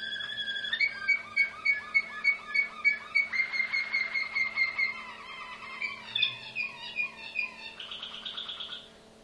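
Malinois (Waterslager) song canary of the Janssen line singing. It opens with a steady rolling trill, then moves into a run of loud, evenly spaced notes about three a second. After that come varied phrases and a fast, higher trill, and the song stops near the end.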